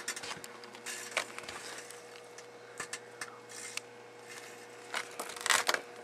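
Microwave oven running with a steady hum while the Motorola cell phone and battery inside it crackle and pop as they burn. The crackles come irregularly, with a louder dense run of them near the end.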